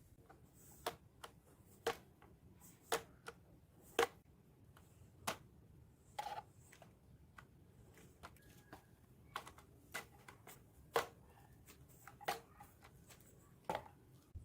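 Light clicks and taps at irregular spacing, roughly one a second.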